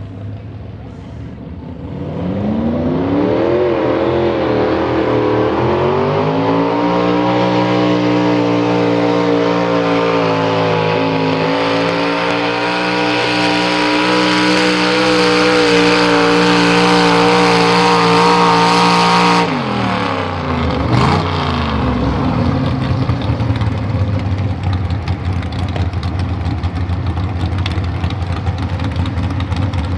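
Classic modified pulling tractor's engine rises from idle about two seconds in, its pitch climbing and wavering, then runs at steady high revs under full load pulling a weight-transfer sled. About two thirds through, the throttle is cut and the pitch falls away abruptly to a rough idle.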